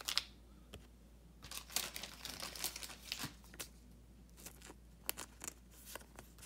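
A thin plastic penny sleeve crinkling and rustling as a trading card is slid into it, in short scattered crackles and light clicks.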